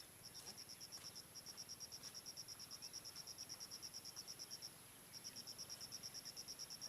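Cricket chirping: a fast, even train of high-pitched pulses, about ten a second, with a short break about two-thirds of the way through, over a faint steady high whine.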